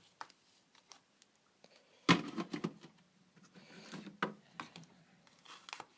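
Metal lighters being handled in a display case: scattered clicks and knocks, with one sharp knock about two seconds in, followed by a low hum for a couple of seconds.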